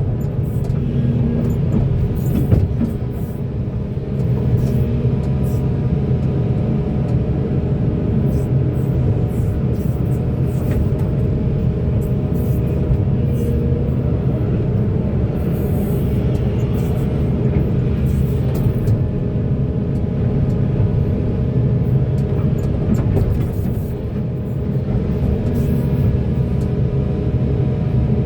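Large hydraulic mining excavator's diesel engine running steadily under load through a digging and loading cycle, easing off briefly twice.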